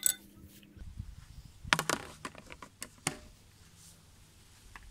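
Small metal bicycle stem parts being handled and set down on a stone workbench: a sharp click at the start, a cluster of clicks and knocks about two seconds in, and two more knocks shortly after.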